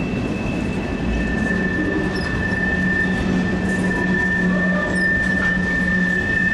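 Loaded freight train cars of the CN M338 rolling steadily past at low speed, their wheels squealing in a steady high pitch that comes in about a second in as they work around the curve.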